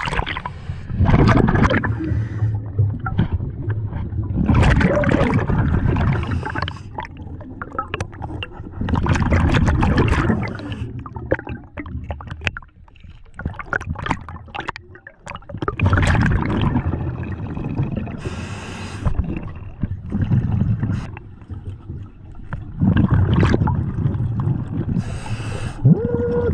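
Scuba regulator breathing heard underwater: bursts of exhaled bubbles gurgling every few seconds, with quieter hissing between them.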